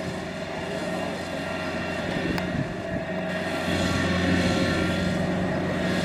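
Tracked rice combine harvester's diesel engine running steadily as the machine drives over the field, a low even drone with clattering machinery noise on top. It grows a little louder about halfway through as the machine comes closer.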